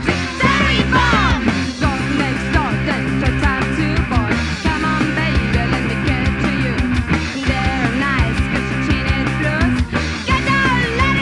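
Punk rock band's studio demo recording playing: electric guitars, bass and drums, with regular drum hits.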